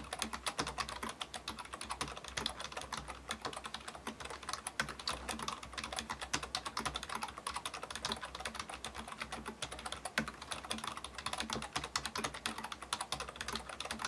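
Steady touch-typing on an Acer KU-0906 rubber-dome keyboard: a quick, continuous run of clicky keystrokes. The click is just the keys themselves; the rubber-dome mechanism underneath is very quiet.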